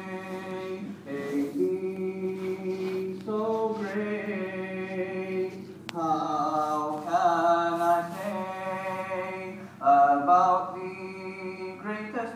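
A man singing a nasheed unaccompanied, in long held, ornamented notes that waver in pitch, phrase by phrase with short breaths between, swelling loudest near the end.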